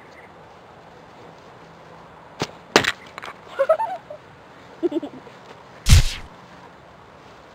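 Staged attack: two sharp cracks about two and a half seconds in, a few short cries, then the loudest sound, a heavy deep thump about six seconds in, as a blow lands on a person lying on the grass.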